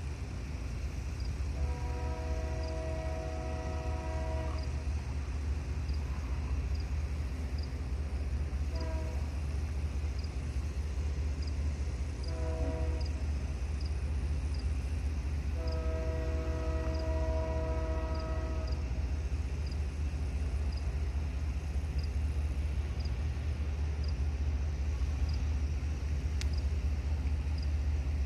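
Union Pacific GE C45ACCTE locomotive's multi-chime air horn sounding from an approaching train: a long blast, two short ones, then a long blast. A steady low rumble runs underneath and slowly grows louder as the train comes closer.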